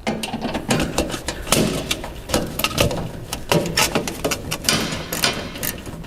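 License plate being unscrewed and pulled off a car's front: a busy run of irregular metallic clicks, knocks and rattles, several a second.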